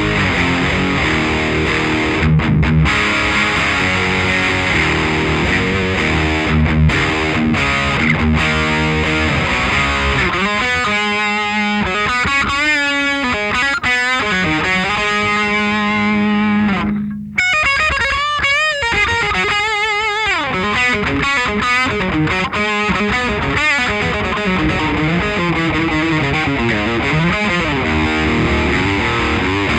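Electric guitar played through an original 1980s Marshall Guv'nor overdrive pedal, with a gritty distorted tone. It plays chords, then a lead passage of bent single notes with a held note that stops abruptly just past the middle, and returns to chords near the end.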